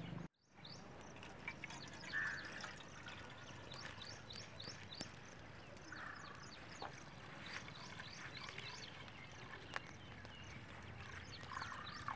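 Thick cow colostrum pouring from a steel bucket through a strainer into a metal pot, a soft steady trickle, with many short high chirps from small birds around it.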